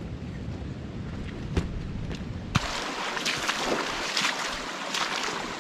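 Wind buffeting the microphone as a low rumble, then it cuts off sharply about two and a half seconds in. Boots splash and slosh irregularly while wading through a shallow, fast-running flooded creek.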